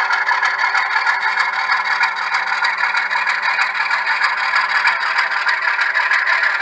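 Model Penn Central RS-11 diesel locomotive and caboose running slowly on the layout track: a steady rattle and clatter of wheels and running gear full of small clicks, over a faint hum that partly drops out about five seconds in.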